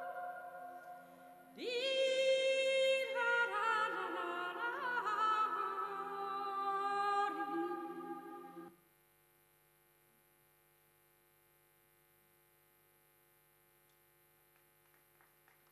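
Music of long held sung notes with a wavering pitch, which cuts off abruptly about nine seconds in, leaving near silence. Faint clapping begins just at the end.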